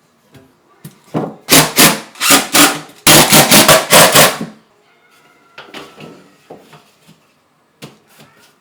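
Loud scraping strokes repeated in a rhythm, a few separate strokes and then a quicker run, for about three seconds starting a second in; then faint knocks and clicks of handling.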